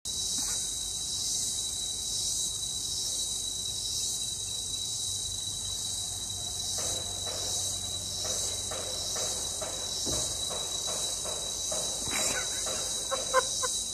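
Steady, high-pitched insect chorus. A faint, lower pulsing joins in about halfway through, and a single sharp click sounds near the end.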